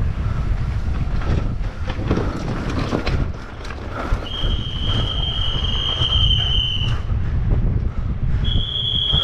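Mountain bike descending fast: wind buffeting the camera microphone over the rattle of tyres, chain and frame on concrete and dirt, with scattered knocks. A high, steady whine from the bike comes in about four seconds in and holds for nearly three seconds, then returns briefly near the end.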